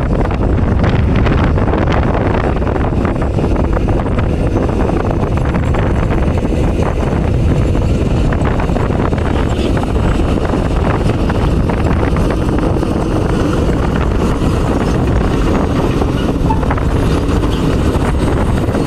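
Excavator's diesel engine running steadily under working load, with wind buffeting the microphone.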